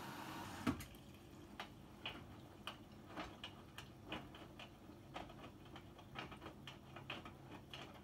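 Hotpoint WMFUG842P front-loading washing machine mid-wash: the drum turns slowly with wet laundry tumbling and water sloshing, giving soft, irregular clicks and knocks about twice a second. A sharp click comes under a second in, where a steady hum stops.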